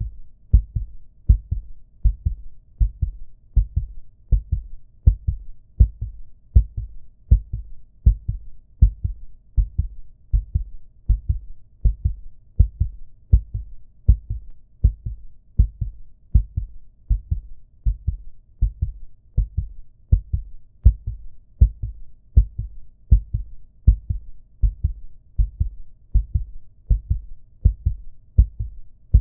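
Human heartbeat, slow and steady at a little over one beat a second, each beat a low double thump, a louder stroke followed by a softer one.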